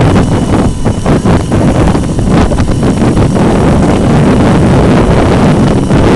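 Loud wind buffeting the microphone of an onboard camera on an 800 W electric scooter moving at speed, a low rushing rumble that swells and dips unevenly.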